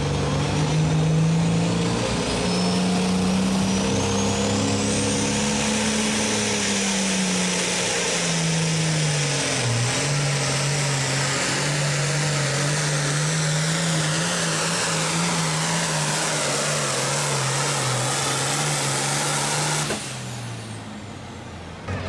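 Allis-Chalmers 220 pulling tractor's turbo diesel engine running flat out under load while pulling the sled, with a high turbo whine climbing over the first few seconds. The engine note rises, dips about ten seconds in, then holds steady until the sound breaks off near the end.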